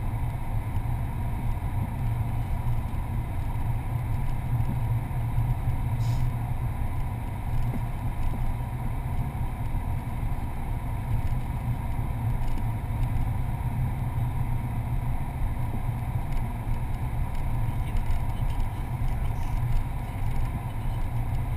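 Car driving along at a steady speed, heard from inside the cabin: a steady low rumble of engine and tyres on the road.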